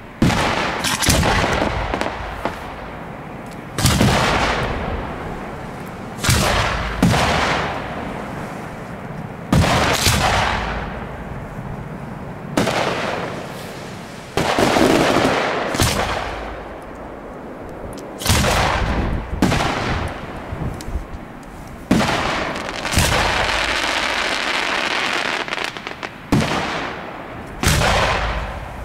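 Aerial fireworks bursting overhead: sharp booming bangs at irregular intervals of one to three seconds, each trailing off in a long echo.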